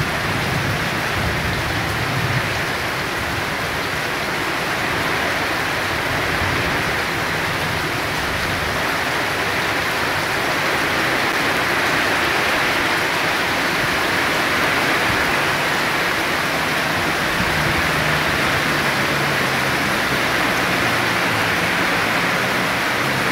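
Heavy rain pouring down steadily. A low steady hum comes in about three quarters of the way through.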